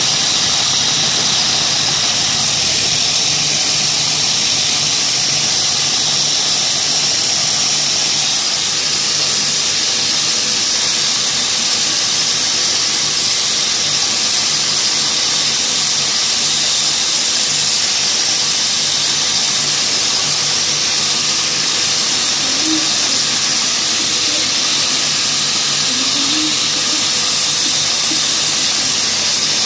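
Yarn twisting machine running: spindles and rollers give a steady, loud whirring hiss over a low hum, with a few faint short squeaks near the end.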